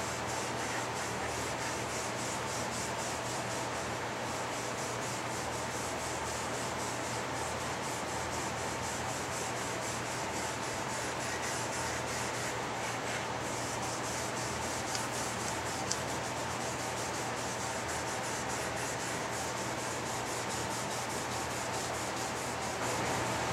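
Finish-soaked cheesecloth rubbed in quick, continuous strokes over a checkered wooden rifle fore-end, applying a coat of wood finish.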